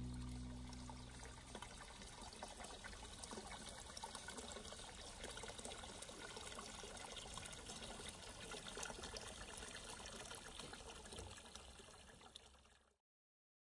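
Spring water pouring from a bamboo spout and splashing steadily into a stone basin. It fades and cuts off about a second before the end.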